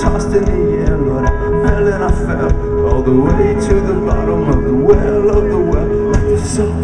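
A live rock band plays loud amplified music with no lyrics sung: a steady held note with wavering melodic lines over it, and regular cymbal strokes.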